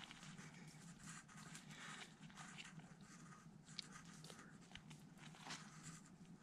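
Near silence, with a few faint scattered rustles and small clicks.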